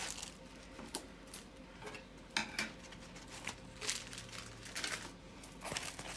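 Light rustling and a scatter of soft clicks and taps as a plastic-covered diamond painting canvas is handled and unrolled from its foam roller.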